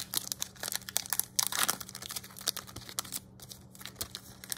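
Foil wrapper of a trading-card pack crinkling and tearing as it is ripped open and pulled apart by hand: a quick run of crackles, thick at first and thinning out toward the end.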